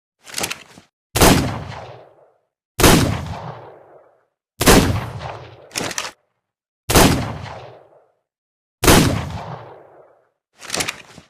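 Revolver sound effect: five single gunshots, roughly two seconds apart, each with a fading echo tail about a second long. Short, quieter mechanical clicks come near the start, between the third and fourth shots, and near the end.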